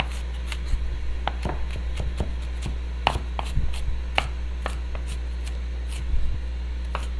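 Kitchen knife slicing vegetables on a wooden cutting board: irregular sharp knocks of the blade against the board, over a steady low hum.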